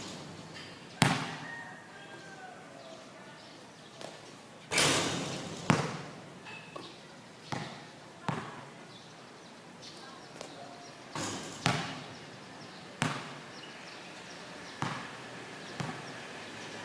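A basketball bouncing on a hard court: about ten sharp thuds at irregular intervals, not a steady dribble, with faint voices in the background.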